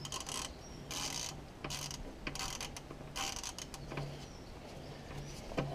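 Ratchet wrench clicking in repeated short bursts as it works the oil sump drain plug loose on a Ford 2.0 TDCi diesel engine, just before the oil starts to drain.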